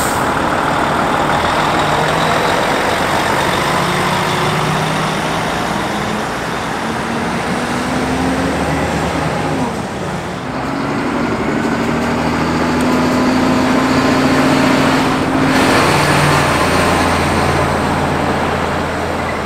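Heavy diesel trucks pulling away and driving past: a Volvo FH prime mover hauling a trailer, then a rigid box truck. The engine note climbs as they accelerate, loudest past the middle.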